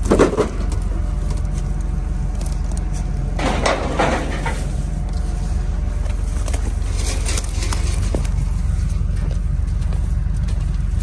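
Digging at a buried building door: scrapes and clunks, loudest about four seconds in, over a steady low engine rumble.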